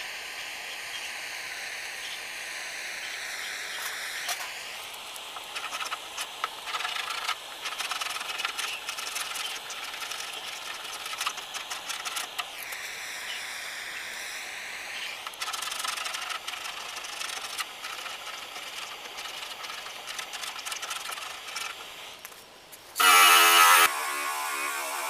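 Handheld gas torch hissing steadily against a car door while a scraper scratches off paint and body filler in short strokes. Near the end a cordless drill with a wire wheel runs briefly and loudly with a whine.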